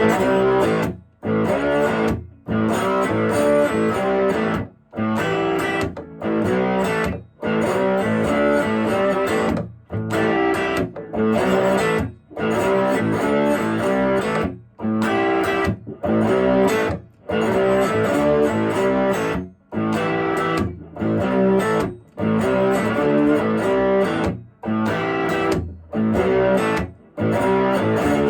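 Höfner Verythin Singlecut electric guitar played with a slide in open G tuning through a Marble DCP 100 amp, a blues riff in short phrases, each broken off by a brief silence.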